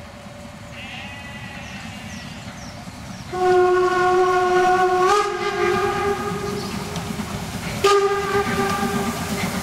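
Steam whistle of narrow-gauge steam locomotive 99 7238-1: one long blast, rising slightly in pitch partway through, then after a brief break a second shorter blast. Beneath it is the low, steady running noise of the locomotive drawing slowly closer.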